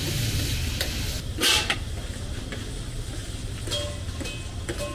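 Metal utensils clanking at a street-food griddle (tawa), a few sharp ringing clanks, the loudest about a second and a half in, over a steady low rumble.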